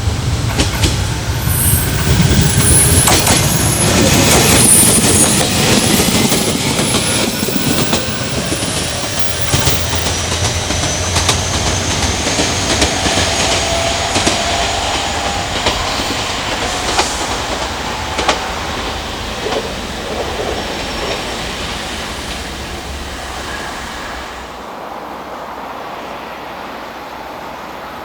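JR Kyushu electric commuter train passing at close range, its wheels clicking over rail joints, with a high squealing tone that slowly falls in pitch. Loudest in the first few seconds, then dying away toward the end.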